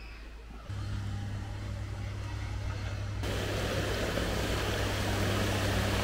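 A steady low rumble, joined about three seconds in by the even rushing hiss of a shallow mountain stream flowing over rocks.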